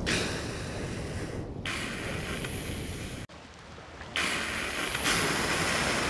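Humpback whales blowing at the surface: loud breathy whooshes of exhaled spray with sharp onsets, broken by a short lull about three seconds in, over a steady low rumble of wind and water.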